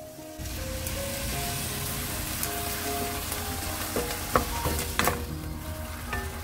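Soy-sauce mixture hitting a hot frying pan of sautéed garlic cloves and breaking into a sizzle about half a second in. A wooden spatula stirs the garlic through the sizzling sauce, knocking sharply against the pan a few times around four to five seconds in.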